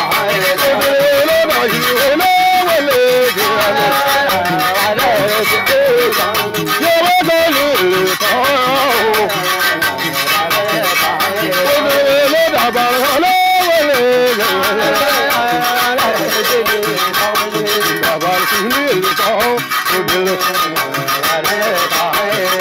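Balafon music: a fast, steady stream of struck wooden keys, with a voice singing over it.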